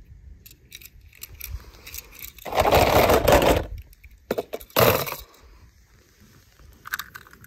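Small die-cast toy cars handled and set down on a brick ledge: scattered light clicks and knocks, with a scraping noise about two and a half seconds in that lasts about a second, and a shorter scrape about five seconds in.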